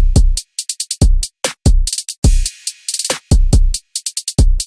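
Electronic background music: a programmed drum-machine beat of deep kick drums and crisp hi-hat and snare hits.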